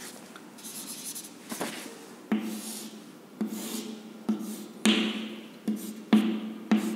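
Chalk on a blackboard: scraping strokes drawing lines, then a run of sharp taps and knocks with a short ring from the board, coming faster in the second half as marks are written in.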